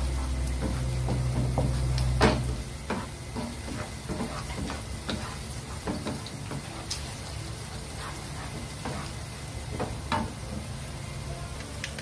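Green beans with shallots and garlic being stir-fried in a nonstick wok: a light sizzle, with repeated clicks and scrapes of a wooden spatula against the pan. A low steady hum underneath stops about two and a half seconds in.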